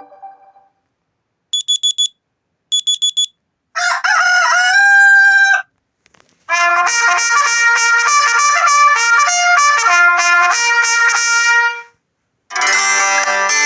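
Honor 7A (EMUI) phone tones played one after another: two quick groups of short, high electronic beeps, then a two-second sound with pitch glides, then a melodic tone lasting about five seconds, and another melody starting near the end.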